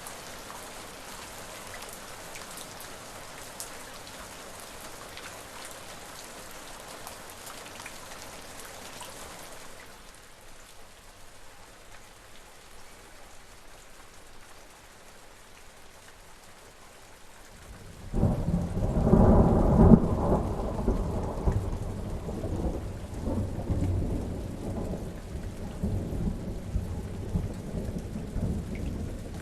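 Steady rain hissing, which turns softer and duller about a third of the way in. A little past halfway a loud roll of thunder breaks in suddenly and rumbles on, slowly easing, over the rain.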